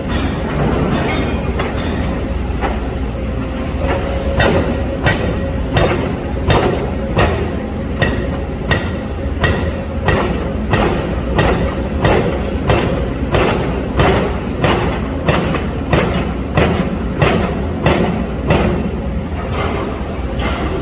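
Low-noise hydraulic breakers on excavators hammering, a steady run of sharp blows about one and a half to two a second over the low drone of the machines' engines. The blows grow more distinct about four seconds in.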